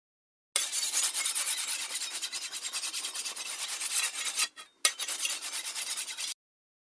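A rapid rasping scrape made of many quick strokes. It starts about half a second in, breaks off briefly a little past four seconds, and stops abruptly near the end.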